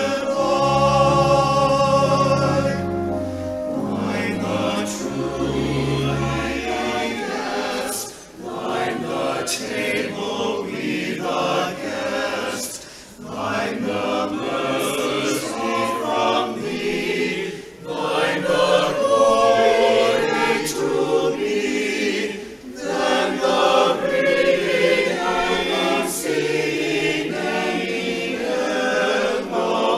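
A hymn sung by a group of voices, line by line with short breaks between phrases. Low accompanying notes sound under the singing in the first several seconds.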